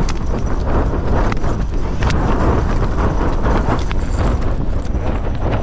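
Strong gale-force wind buffeting the microphone in a steady loud rush, with irregular rapid flapping and knocking through it.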